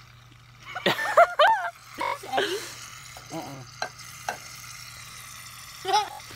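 Shaving cream hissing and sputtering from an aerosol can into glue slime in a glass bowl while a spoon stirs and squishes it, with a few short squeaks, loudest about a second in.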